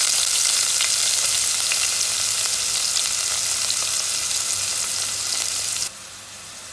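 Freshly added chopped onions sizzling in hot oil in a steel pot, with small pops of spattering oil. Near the end the sizzle drops sharply to a quieter, steady hiss.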